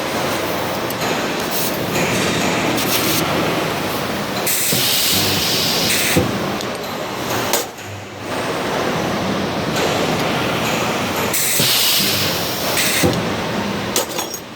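Steady industrial noise around a nut projection welding machine, with two bursts of loud hiss lasting a second or two each, and a few sharp clicks.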